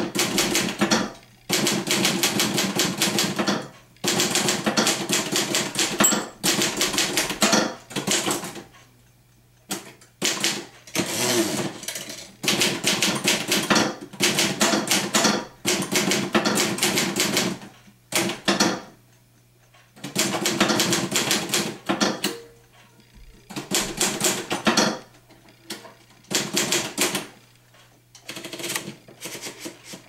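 Royal 440 manual desktop typewriter being typed on: fast runs of typebar strikes, each lasting one to two seconds, broken by short pauses.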